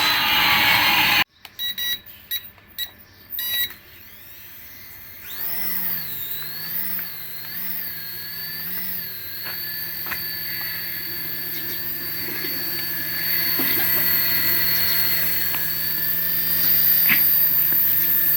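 A toy's small electric motor whining steadily, its pitch wavering at first and then holding even. It is preceded by a loud noisy toy sound with a sweeping tone that cuts off abruptly about a second in, then a few short bursts.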